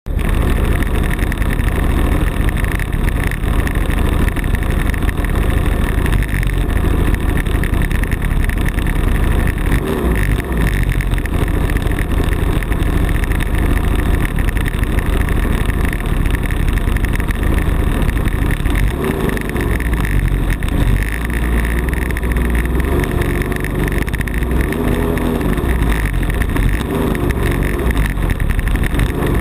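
40cc CRRC two-stroke gasoline engine of a giant-scale RC airplane running steadily, heard up close from a camera mounted right beside it on the airframe.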